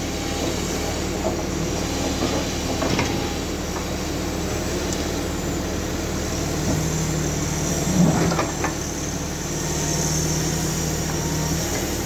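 Diesel engine of a Cat knuckleboom log loader running steadily as it works the grapple. A few sharp knocks come through, the loudest about eight seconds in, and a steady higher drone joins about seven seconds in and stops shortly before the end.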